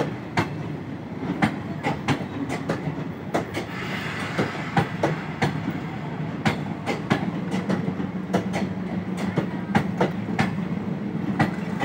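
Passenger coaches of a departing diesel-hauled train rolling past, their wheels clicking over rail joints again and again over a steady rumble.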